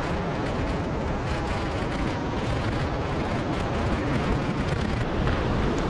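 Steady rush of wind buffeting the microphone while riding an e-bike along the beach, heavy in the low end, with no clear breaks.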